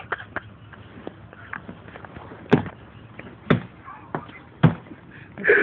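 Knife being sharpened: a few short, sharp strokes of the blade on the sharpener, irregularly spaced, the strongest about two and a half, three and a half and four and a half seconds in.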